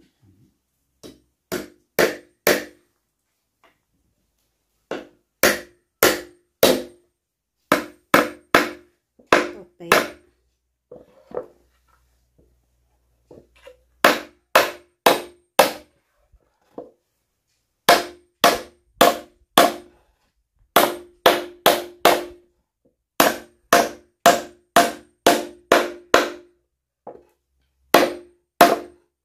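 Claw hammer driving nails into a plank wooden stool: runs of three to seven blows at about two to three a second, with short pauses between runs, each blow ringing briefly in the wood.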